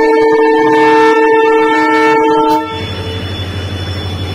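Multi-tone air horn of a passing Indian Railways WDG-4D diesel locomotive, loud and held on one steady chord, cutting off a little under three seconds in. The locomotives' low running rumble carries on after it.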